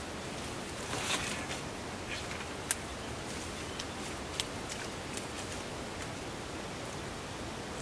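Steady outdoor hiss with a brief rustle of shrub leaves and stems about a second in, and a few sharp little ticks, as someone moves down through bushes at a pond's edge.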